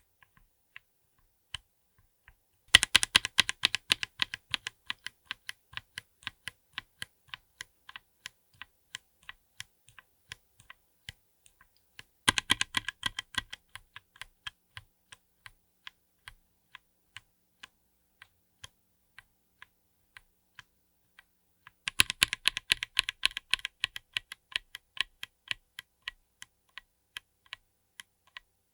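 Linear mechanical keyboard switch under a GMK keycap, close-miked and pressed repeatedly. Three runs of rapid keystrokes come about ten seconds apart, each starting fast and slowing to spaced single presses, with scattered lone clicks between runs.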